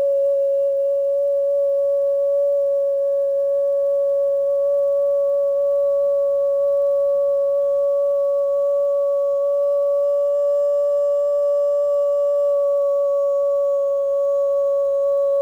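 A single pure tone used for sound healing, held dead steady at one pitch throughout, with a fainter overtone an octave above. More faint, high overtones come in about two-thirds of the way through.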